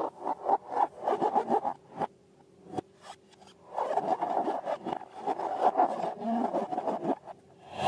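Crackly rubbing and scraping from hands working balloons and slime, in two long stretches with a pause a couple of seconds in.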